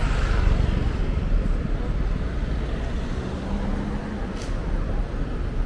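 Street traffic: a steady low rumble of vehicles passing, with a brief engine tone midway and a single sharp click a little after four seconds in.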